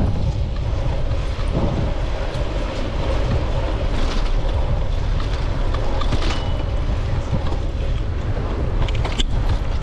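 Wind buffeting a GoPro Hero 9's microphone during a bicycle ride, a steady low rumble mixed with tyre and road noise, with a brief sharp click near the end.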